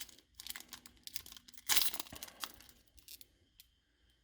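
Foil wrapper of a trading-card booster pack crinkling and tearing in the hands. The loudest rustle comes about two seconds in, then a few faint ticks.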